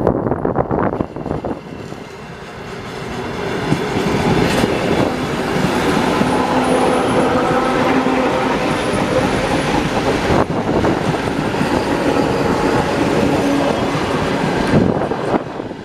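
ER9M electric multiple unit running past at close range, wheels rumbling on the rails with steady humming tones underneath. It grows louder over the first few seconds as it draws level, stays steady, and cuts off abruptly near the end.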